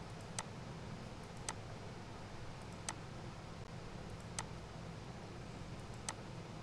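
Computer mouse button clicks, five single sharp clicks spaced about a second and a half apart, over a faint steady low hum.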